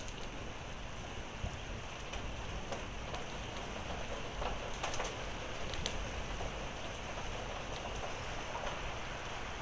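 Steady heavy rain falling on surfaces, with a few scattered ticks from pea-size hail mixed in.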